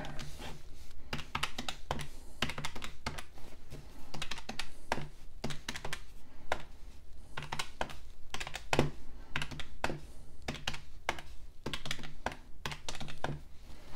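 Buttons of a Catiga CD-8185 plastic desktop calculator being pressed one after another, an irregular run of light clicks, a few a second, as a column of figures is added up.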